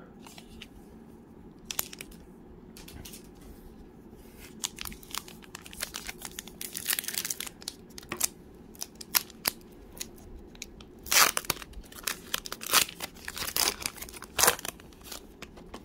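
A sealed trading-card pack wrapper being torn and peeled open by hand: a run of irregular crinkling and tearing crackles, with the loudest bursts from about the middle to near the end.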